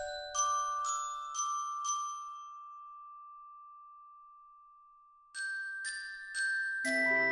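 Instrumental music of bright, bell-like struck notes. Four quick notes are followed by one note left ringing and slowly fading for about three seconds, then another group of struck notes. Near the end, lower sustained notes and a bass come in underneath.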